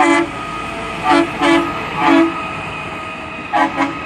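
Horn of a railroad work-train machine sounding a series of short toots: one at the start, three more from about a second in, and two quick ones near the end, over the steady running noise of the passing machine.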